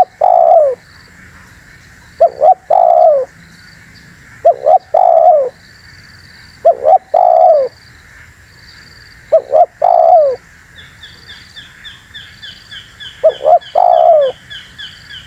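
Spotted dove cooing: a repeated phrase of two short notes and a longer falling coo, about every two seconds, six times. Over the second half runs a rapid series of high, thin chirps, about five a second.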